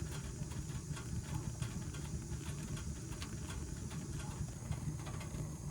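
Old Tappan gas furnace running with its blower fan on: a steady low rumble of the blower and the burning gas, with faint scattered ticks.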